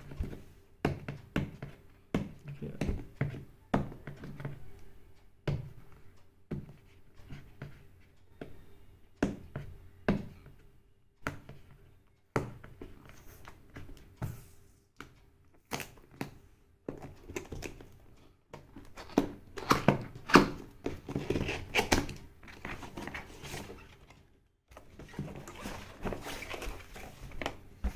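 A cardboard keyboard box being handled and opened by hand: irregular thunks and knocks with scraping and rustling of cardboard.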